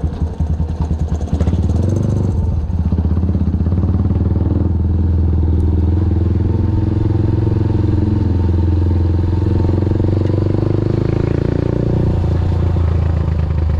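Motorcycle engine running under way, heard from on the bike as a steady low drone. The engine note flutters and dips in the first second or two, then holds steady.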